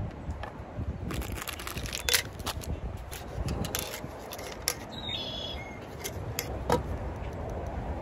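Clicks, light knocks and rattles of a Jetboil camp stove kit being unpacked by hand: the plastic canister stand and other stove parts tipped out of the cook cup and set down on a wooden table.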